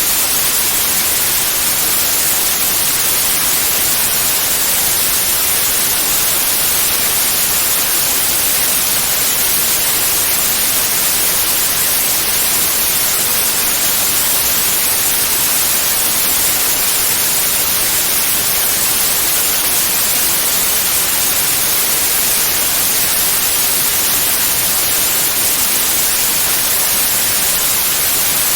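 Synthetic white noise for masking tinnitus: a steady, unchanging hiss, strongest in the treble, with no tones or swells.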